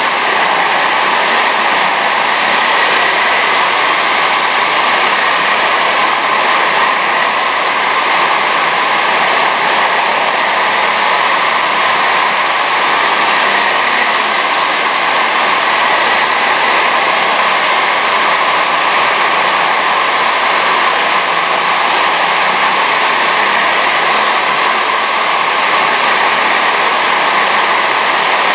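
Steady, loud din of many 6.5 hp kart engines running at race speed around an indoor kart track, with faint wavering engine tones in it and no single pass-by standing out.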